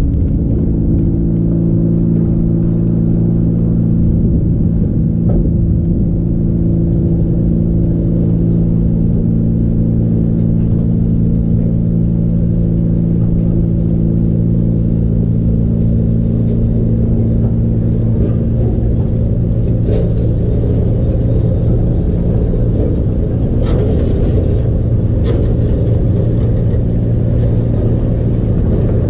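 A loud, steady mechanical hum of several held low tones over a rumble, not changing in pitch, with a few faint clicks late on.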